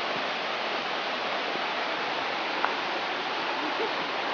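Mountain stream rushing steadily, an even hiss of running water, with one brief click about two and a half seconds in.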